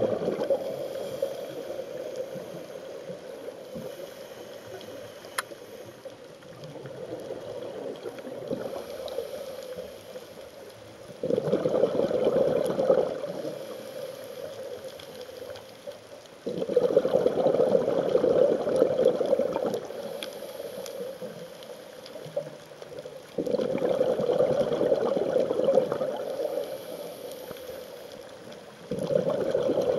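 Scuba diver's regulator exhaust: bursts of exhaled bubbles rushing past the camera for two to three seconds each, coming about every five to six seconds, with quieter stretches in between.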